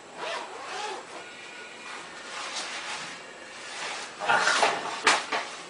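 Rustling and crinkling of a gift bag and its wrapping as a present is pulled out, in several bursts, loudest about four seconds in.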